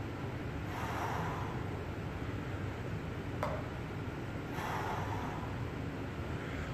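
A man's forceful breaths of exertion during an Indian club exercise, two of them about four seconds apart, with a single sharp click between them. A steady low hum runs underneath.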